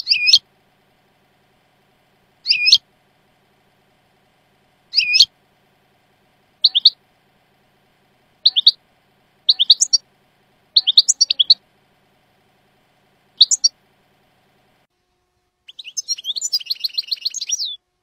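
European goldfinch singing in the Jordanian song dialect: short twittering call notes every second or two, some in quick doublets and triplets, then a longer rapid trill near the end.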